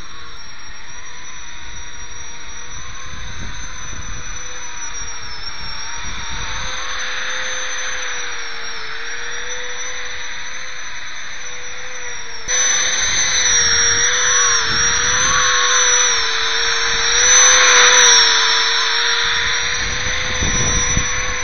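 Single ducted fan of a MonoPhan thrust-vectoring model helicopter whining steadily in flight, a high-pitched jet-like whine. About halfway through it turns suddenly louder and harsher, swelling to its loudest a few seconds later.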